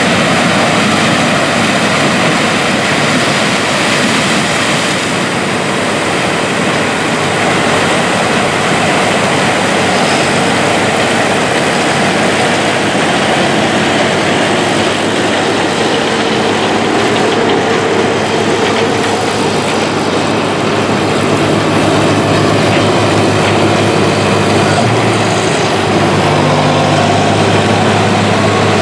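Lexion combine harvesting corn with an 18-row corn head: a loud, steady din of engine and header machinery. A low engine hum stands out more clearly over the last several seconds.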